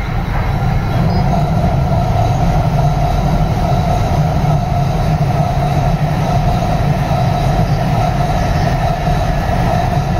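E7 series Shinkansen passing at high speed: a deep, steady rush of wheels on rail that builds over the first second and then holds loud, with a steady whine running through it.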